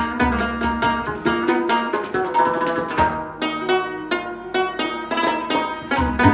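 Rebab, a plucked lute, played in a fast run of plucked notes that ring on, accompanied by tabla with deep bass strokes near the start and the end.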